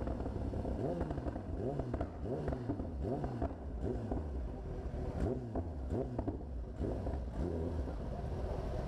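Kawasaki ZX-10R's inline-four engine running at low revs as the motorcycle slows almost to a stop. Its pitch rises and falls in short, repeated swells.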